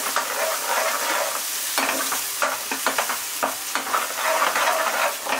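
Masala paste sizzling in ghee in a non-stick kadai on a low flame. A metal slotted ladle stirs through it, with frequent short scrapes and taps against the pan.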